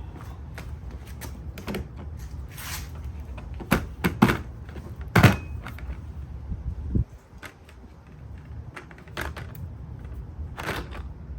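Scattered clicks and sharp knocks of hand tools and generator parts being handled, the loudest about four and five seconds in, over a low steady rumble that drops away about seven seconds in.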